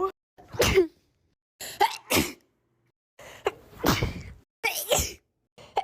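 A young woman sneezing about four times in quick succession, each sneeze a sharp burst, most with a short catch of breath just before.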